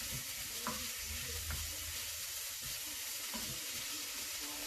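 Chopped tomatoes, onion and bacon sizzling steadily in bacon fat in a frying pan while a wooden spoon stirs them, with a couple of faint scrapes of the spoon.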